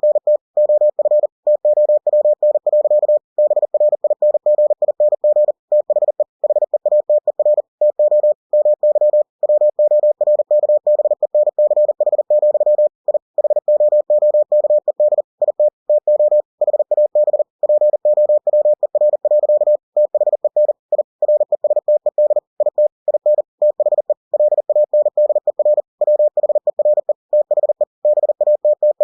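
Computer-generated Morse code (CW) tone sending text at 40 words per minute: one unchanging mid-pitched beep keyed on and off in a fast, unbroken stream of dots and dashes, with slightly longer gaps between words.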